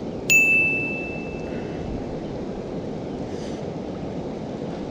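A single bright ding about a third of a second in, a clear ringing tone that fades over about a second and a half, over a steady low rushing noise.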